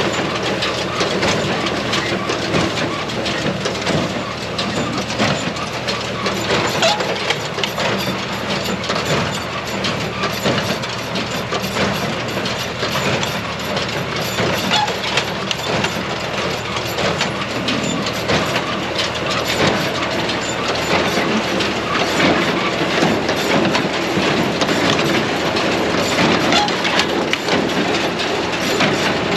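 John Deere 24T square baler running behind a John Deere tractor while baling hay: a steady engine with a dense clatter of knocks from the baler's mechanism.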